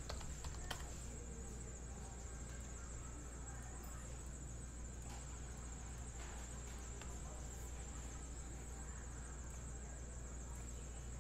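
Quiet room tone: a steady low electrical hum and a thin, constant high-pitched whine, with a few faint clicks.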